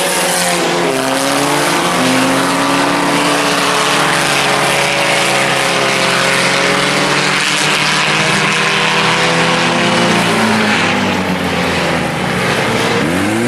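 A field of four-cylinder sport compact race cars running at racing speed, several engines droning together at high revs. Near the end one car's pitch rises and falls as it passes close by.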